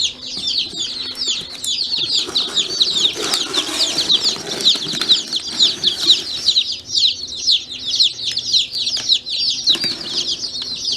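A box of day-old hatchery chicks peeping continuously, many high, falling chirps overlapping. Rustling handling noise joins in from about two to six seconds in.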